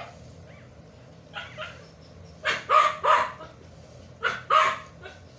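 Dog barking in short, sharp groups: two faint barks, then three loud ones, then two more near the end.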